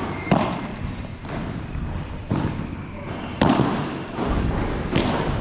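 Padel rally: the ball struck by rackets and bouncing on the court, four sharp hits a second or two apart.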